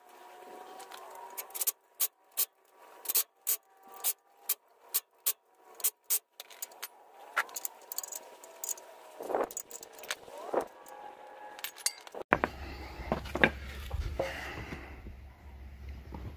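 Sharp metallic clicks and clinks, about two or three a second, from hand work with tools and parts at a Geo Tracker's front wheel hub while a replacement front axle is fitted. About twelve seconds in, a steady low hum starts under a few more knocks.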